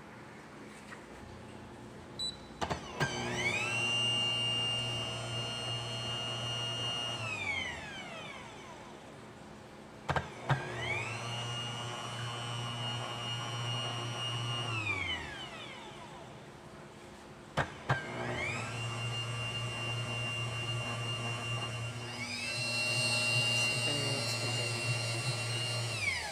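Bear bread dough maker's motor kneading dough in three separate runs, each a few seconds long. Each run starts with a click, spins up with a rising whine over a low hum, holds steady, then winds down.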